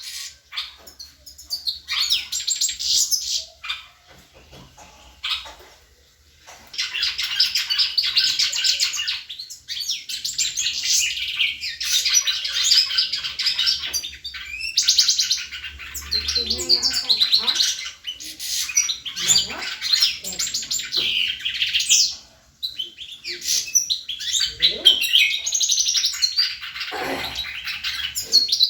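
Songbird song: long phrases of fast, high twittering and chirping with short pauses between them, and a quieter lull a few seconds in.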